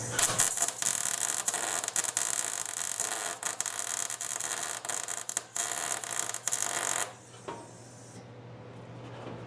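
Welder crackling and sputtering for about seven seconds, then cutting off: a nut being welded onto a broken, rusted bolt stub to get a grip for turning it out.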